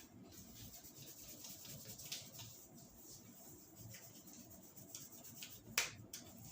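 Hands rubbing and working over hair and scalp during a barber's head massage, with small clicks throughout and one sharp snap near the end.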